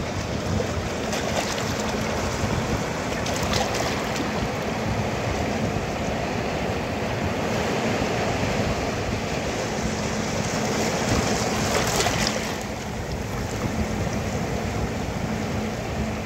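Small waves of surf washing in over coral rocks at the water's edge, a continuous rush of water. It grows louder about eleven to twelve seconds in, then eases.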